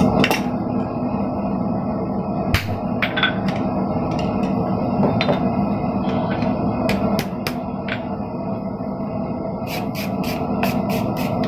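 Hammer blows on red-hot steel held in tongs on an anvil. The blows are spaced at first, then come in a quick run of about four a second near the end, over a steady background hum.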